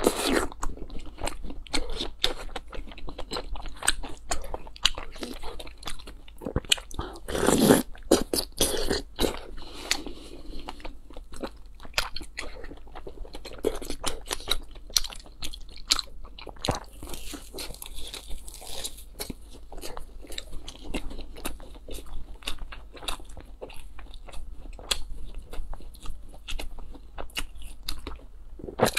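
Close-miked eating: a person biting into and chewing a thick slice of crisp fried bread, a long run of crunches and small mouth clicks, with one loud bite about seven and a half seconds in.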